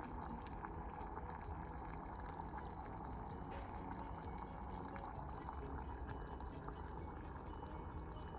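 Electric steam inhaler running on plain water, the water boiling steadily inside it.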